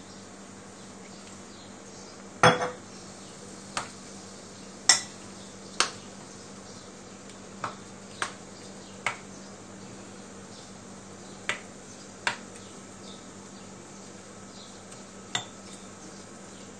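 Metal spoon clinking against a cut-glass bowl while stirring thick semolina batter: about ten sharp, irregular knocks, each with a brief ring, over a steady low hum.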